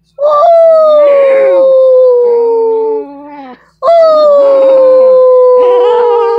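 Dog howling: two long howls of about three seconds each, the second starting near the middle, each beginning on a higher note and sliding slowly lower.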